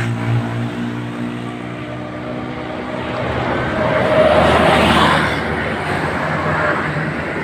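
Large tour bus's engine running, its pitch falling right at the start and then holding steady; about four seconds in a louder rush of road noise swells and fades as traffic goes by.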